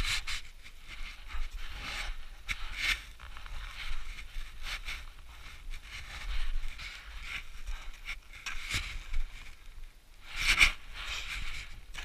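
A climber's boots and ice axe crunching and scraping into steep snow, in irregular strokes every second or two. A low wind rumble on the microphone runs underneath.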